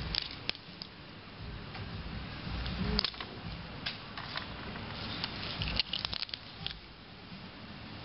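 A table knife clicking and scraping against a freshwater pearl mussel's shell as it is pried open, in a few scattered clicks with a quick cluster about six seconds in.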